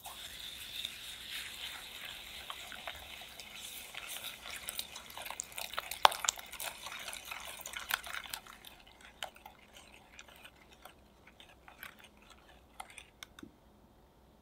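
A wire whisk beating eggs, sugar and vanilla in a glass bowl: a busy swishing with many sharp ticks of the wires against the glass. It fades after about eight seconds to fainter, scattered taps.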